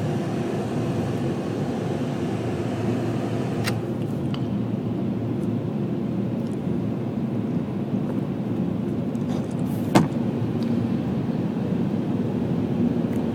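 Automatic car wash machinery running, heard from inside the car's cabin as a steady low noise, with a few light ticks around four seconds in and one sharp click about ten seconds in.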